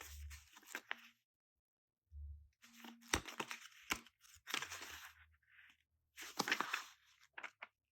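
Paper and plastic rustling and crinkling in several short bursts as a planner book and its packaging are handled, with a few sharp clicks and taps.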